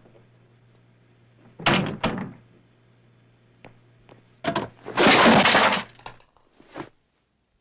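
Foley sound effects made live with props for an action scene: two heavy hits about two seconds in and a few small clicks, then a loud crash of breaking lasting under a second about five seconds in, and a shorter hit near the end.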